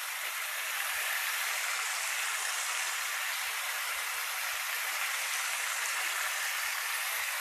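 Chicken thighs sizzling steadily in hot olive oil in a skillet as they brown.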